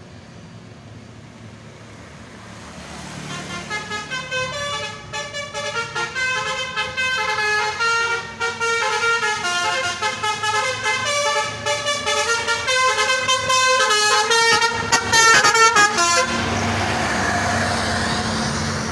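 Indonesian bus 'telolet basuri' multi-tone horn playing a tune of quick stepped notes, starting softly about three seconds in, growing louder and cutting off sharply near the end. A steady vehicle rumble follows.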